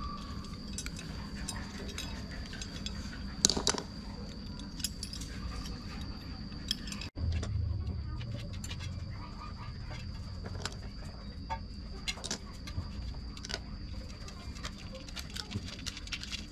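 Light metallic clicks and the jangle of a small chain as the scale's parts, chain and hook are handled and fitted with pliers, with one louder clack about three and a half seconds in.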